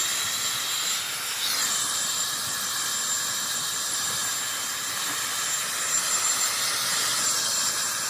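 Dyson Supersonic hair dryer blowing: a steady rush of air with a thin, very high whine over it. About a second and a half in, the pitch of the rush slides down and settles lower, as the dryer is turned to a lower setting and sounds lighter.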